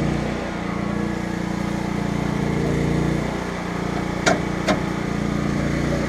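Cummins generator engine running steadily while the vibrating screen plant shakes, with two sharp metallic knocks about four seconds in, half a second apart. The rattle comes from bolts on the screen shaking loose.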